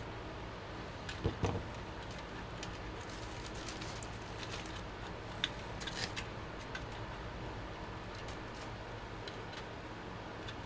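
PC power cables being handled and pushed into place in a steel computer case, with scattered light clicks and rustles and a couple of dull knocks a little over a second in, over a steady low hum.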